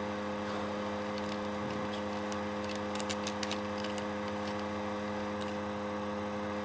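Sharp clicks of a Rubik's cube's layers being turned by hand, scattered and bunched together about three seconds in, over a steady electrical hum.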